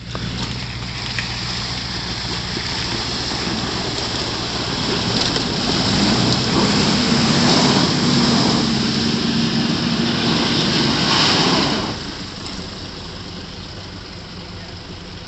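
Nissan Patrol Y61 engine working under load as the SUV churns through deep mud and water, with tyres splashing and spraying mud. The engine and splashing get louder from about four seconds in, then ease off sharply about twelve seconds in, leaving the engine running lower.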